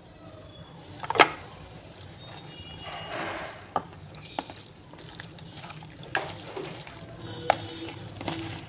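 A hand squishing and kneading wet marinated chicken with cornflour in a plastic tub, with irregular sharp clicks and knocks; the loudest knock comes about a second in.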